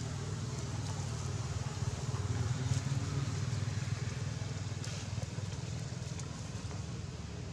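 Steady low engine rumble of a motor vehicle, growing louder about two to three seconds in and then easing off, with a few faint ticks over it.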